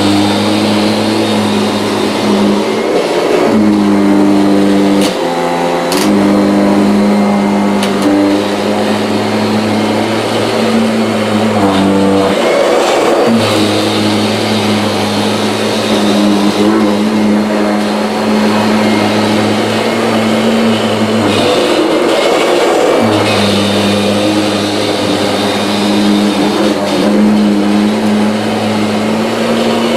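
Kirby G6 vacuum cleaner running on a rug with its stiff brush roll, a loud steady motor hum whose pitch shifts a few times as it is worked back and forth.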